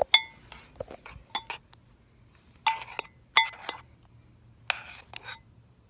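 Metal spoon clinking and scraping against a bowl while stirring slime: sharp ringing clinks in irregular clusters, with a couple of longer scraping strokes near the end.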